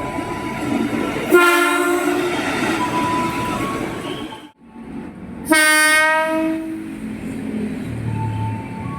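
KRL Commuterline electric train horn, sounded in two short blasts: one about a second in and one about five and a half seconds in. The blasts are heard over the running noise of the train, and the sound drops out for a moment between them.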